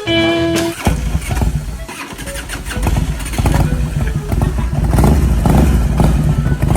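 An engine running with a low, steady rumble that grows louder about three and a half seconds in, after a brief tone right at the start.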